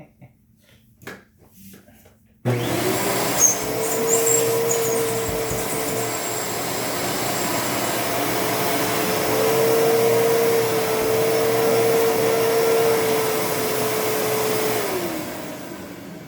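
Dirt Devil Featherlite upright vacuum cleaner switched on with a few clicks, its motor whine climbing to speed, running loud and steady, then switched off near the end, the whine sliding down as it winds down.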